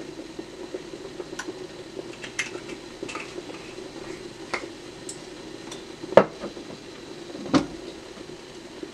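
Stainless steel pan clinking and knocking on the stove as olive oil is swirled across it, with two louder knocks about six and seven and a half seconds in, over a steady hum.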